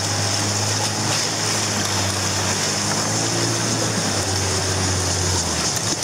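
Rushing river water around an inflatable raft: a steady, noisy rush. A steady low hum runs underneath and cuts out shortly before the end.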